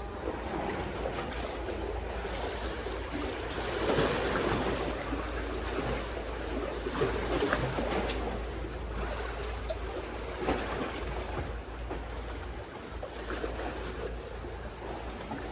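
Sea water washing and sloshing among concrete tetrapod blocks, swelling loudest about four seconds in and again around seven to eight seconds, over a steady low wind rumble on the microphone.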